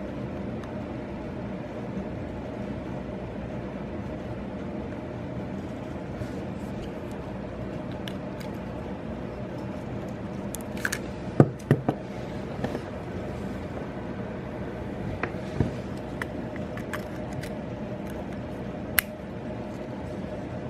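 A steady low hum with a few sharp clicks and knocks, a cluster of them about halfway through and a single one near the end.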